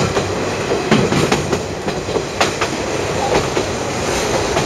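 Diesel railcar running along the track, heard from on board: a steady rumble of wheels on rail, with sharp clicks as the wheels cross rail joints, clustered about one second in and again about two and a half seconds in.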